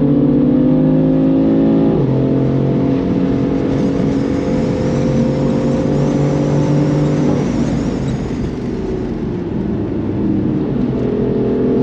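Tuned BMW M4's twin-turbo straight-six pulling hard: the pitch drops at an upshift about two seconds in, then climbs steadily with a faint high turbo whistle above it. About seven seconds in the throttle lifts and the engine note turns rough, before it settles into a steady pull again near the end.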